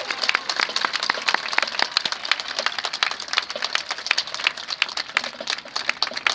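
Crowd applauding with many irregular hand claps.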